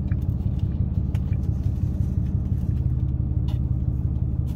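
Steady low rumble of a parked car idling, heard from inside the cabin, with a few faint clicks from handling takeout food containers.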